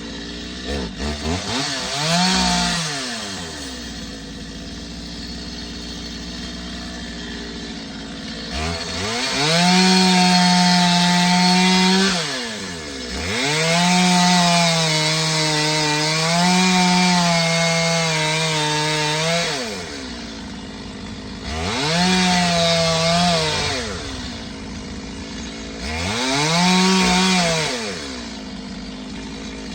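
Two-stroke chainsaw idling between throttle bursts, revving up to full speed about five times. During the longest run, lasting about six seconds, the pitch sags and wavers as the chain works through a fallen log.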